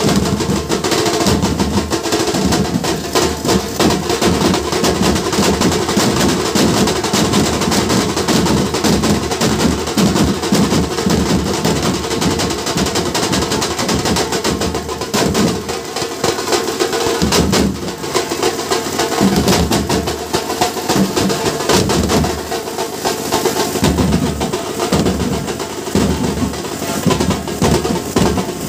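Nasik dhol band playing: several large barrel drums, some with steel shells, beaten with sticks together in a loud, fast, dense rhythm.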